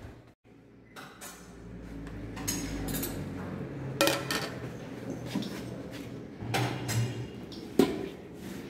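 Dishes and cutlery clinking now and then at a breakfast buffet, over a low steady room hum. A few short sharp clinks come through, the loudest near the end.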